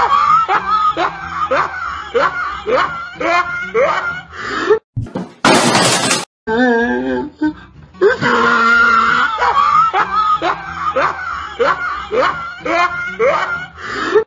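Comic sound-effect track: a quick run of short, rising squeal-like sounds. About five seconds in it is cut by a brief crash-like noise, and from about eight seconds the same run repeats like a loop.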